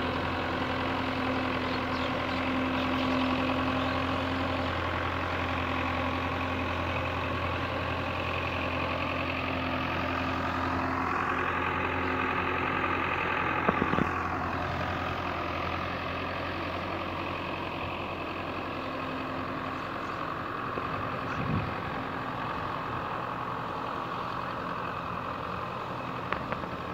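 Belarus tractor's diesel engine running steadily under load as it pulls a rotary tiller through a flooded paddy, its sound swelling and easing off again around the middle, with a few small knocks.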